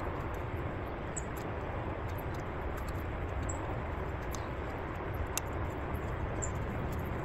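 Steady outdoor background rumble and hiss, with a few faint short high chirps and small clicks.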